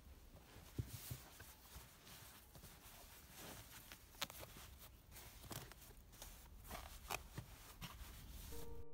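Folded denim jeans being handled and set on a shelf: soft fabric rustling with scattered light knocks. Piano music comes in near the end.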